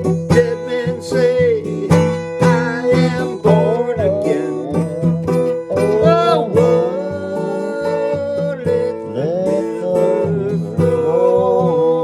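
Acoustic worship-pop song with guitar and plucked strings; no lyric is made out. Quick plucked notes in the first half give way to long, sliding melody notes from about halfway through.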